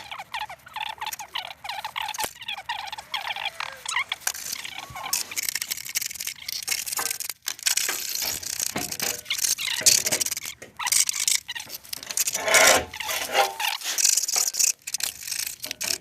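Irregular scraping and rubbing of metal brake parts being handled and fitted on a rear drum brake, with short clicks and a few brief squeaks.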